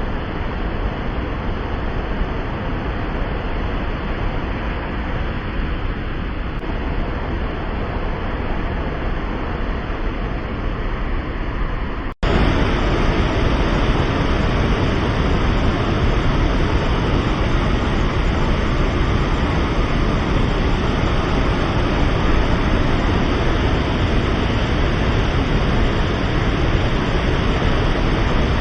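Dettifoss waterfall's water rushing as a loud, dense, steady noise, heaviest in the low rumble. About twelve seconds in it drops out for an instant and comes back louder.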